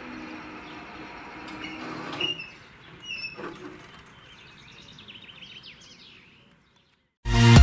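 The AŽD 71 level-crossing signal's classic warning bell ringing, then stopping about two seconds in as the warning ends. After that a few birds chirp, and the sound fades out.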